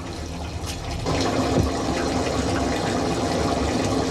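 Food frying in a pan of hot oil: a steady sizzling and bubbling that gets louder about a second in.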